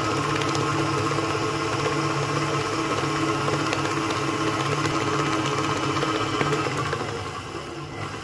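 Electric stand mixer motor running steadily, its beater whipping a creamed butter, sugar and egg batter in a metal bowl; the sound drops lower about seven seconds in.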